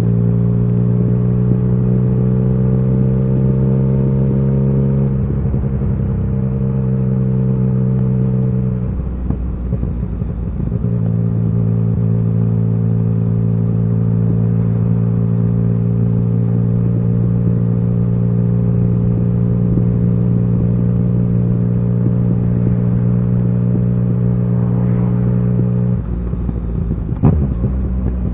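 Yamaha XSR900's inline three-cylinder engine running under steady throttle while riding, its note climbing slowly at first. The note breaks off and resumes at a new pitch about five seconds in, again around nine to eleven seconds, and near the end, where a single sharp click is also heard.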